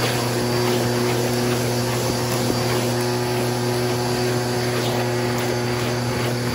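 Bissell vacuum cleaner running steadily through its hose and crevice tool over a rug, a constant motor hum with a faint high whine. Debris being sucked up makes a few faint ticks.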